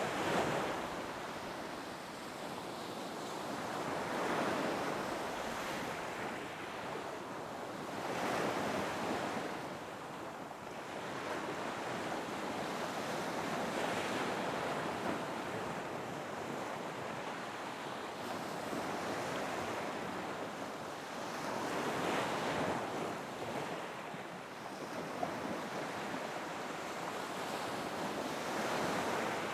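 Ocean waves washing in, the surf swelling and fading every few seconds, with wind. No whale calls can be made out.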